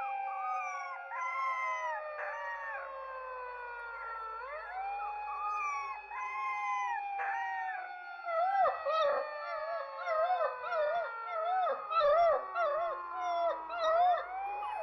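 A chorus of dogs howling, several voices layered over one another, with long drawn-out tones that slowly fall in pitch. From about halfway, shorter wavering howls come quickly, about two a second.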